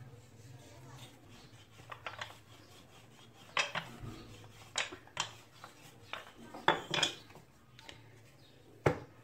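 Wooden rolling pin rolling out dough on a floured stone worktop, with a soft rubbing of dough and about seven sharp, irregular knocks of the wood against the counter.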